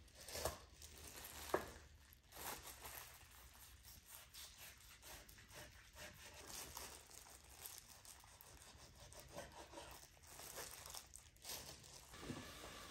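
Faint kitchen food-prep handling: quiet rustling and tearing with a few sharp clicks and knocks, the loudest about a second and a half in.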